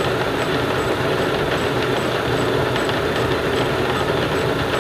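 Defiance horizontal boring mill running steadily while its 5-inch face mill takes a finishing pass across an angle plate, with a faint high tick repeating about three times a second.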